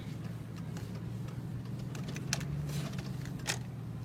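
2003 Chevy Silverado 1500 pickup engine idling steadily, heard from inside the cab, with a few light clicks about a second, two seconds and three and a half seconds in.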